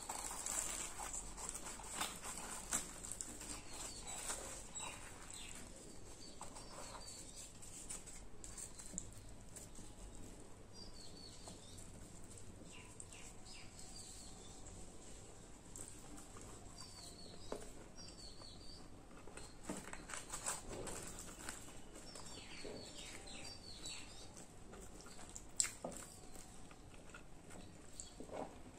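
Close-miked eating sounds: deep-fried bread being torn and chewed, with soft crackles, wet mouth clicks and smacks. Small high chirps come in brief groups in the background.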